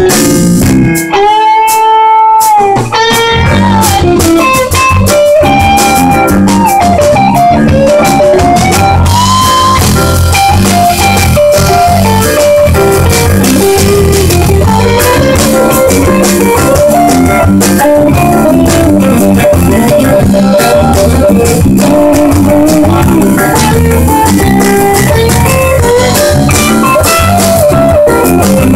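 Live jazz band: an electric guitar plays a lead line over drum kit and bass guitar. About a second in, the drums and bass drop out for a moment while the guitar holds a note alone, then the full band comes back in.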